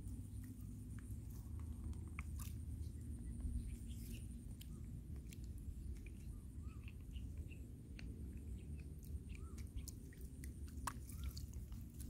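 Scattered light clicks and soft smacks from a young macaque foraging in shallow water at the shore, over a steady low rumble.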